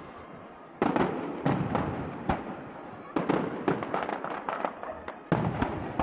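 Aerial firework shells bursting: about six sharp bangs at uneven intervals of roughly half a second to a second and a half, each dying away, with crackling between them.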